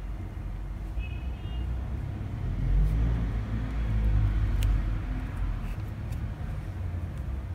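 Low background rumble that swells about two and a half seconds in, holds for a couple of seconds and eases off again, with a few faint clicks.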